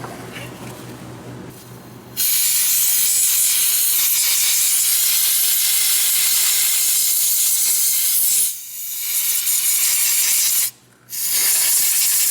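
A loud, steady hiss of a pressurized jet sprayed at the battery cable terminal, starting abruptly about two seconds in, faltering once, cutting off for about half a second near the end and then starting again.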